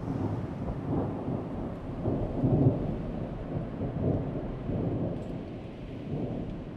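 Low rolling rumble like thunder, swelling to its loudest about two and a half seconds in and then slowly fading.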